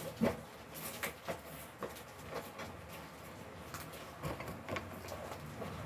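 Scattered light knocks and clicks of items and packaging being handled on a tabletop, the loudest about a quarter second in.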